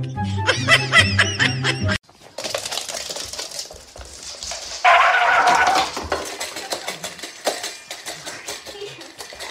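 Music that cuts off abruptly about two seconds in. It gives way to a dog at a metal bowl, a scattered run of sharp clicks, with a loud pitched sound around five seconds in.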